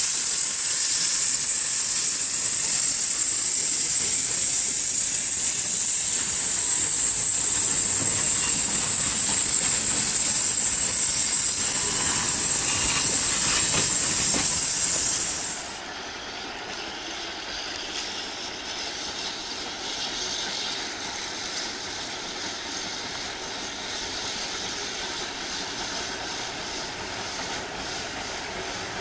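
Steam train pulling away with a loud, steady, high hiss. About sixteen seconds in, the sound drops suddenly to a quieter, even running noise as a small steam tank locomotive approaches.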